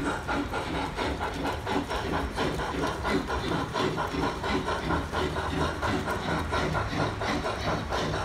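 Model train running on a layout: a steady, busy clatter.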